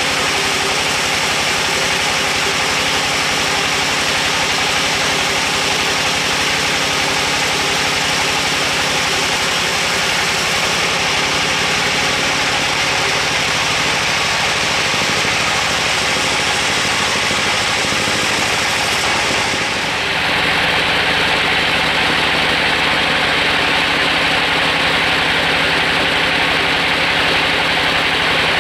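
Large band sawmill running, its band blade cutting lengthwise through a big timber log with a steady, dense sawing noise over the machine's drone. The sound changes abruptly about two-thirds of the way through.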